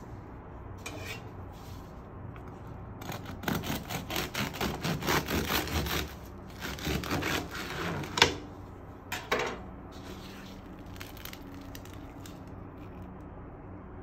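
A bread knife sawing through the crisp, crackly crust of a walnut-raisin sourdough loaf, about three rasping strokes a second in two runs. A sharp knock comes about eight seconds in, then a couple of short crunches.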